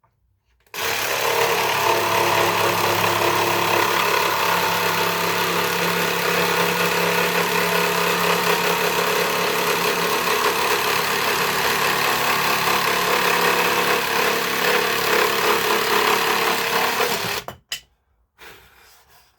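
Dewinner cordless jigsaw sawing through hardwood flooring with a wood blade on pendulum setting 1, the slower, cleaner-cutting setting. The saw starts about a second in, runs steadily for about seventeen seconds, and stops abruptly near the end.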